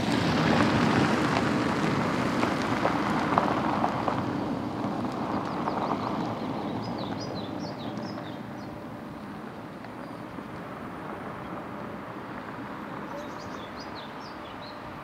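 A road vehicle passing close by: a broad tyre-and-engine rush that fades away over about eight seconds. Faint bird chirps follow in the quieter background.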